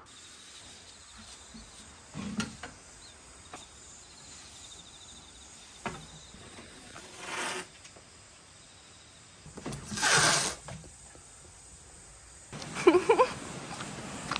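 Faint steady insect trilling under scattered light knocks and handling sounds. A short loud rush of noise comes about ten seconds in, and a few brief rising-and-falling pitched sounds come near the end.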